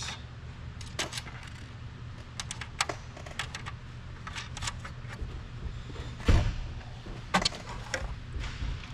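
Small metal nuts and washers clinking and clicking as they are handled and threaded by hand onto mounting studs, with one heavier knock about six seconds in, over a steady low hum.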